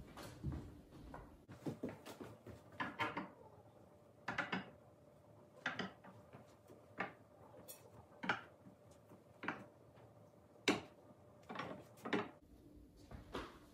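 Forged iron stocking hangers knocking and clacking against a wooden mantel as they are set in place and stockings are hung on them. The short knocks come about once a second.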